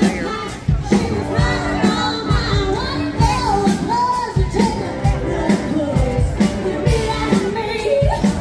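A live band playing amplified pop-rock, with a singer's voice over a steady drum beat.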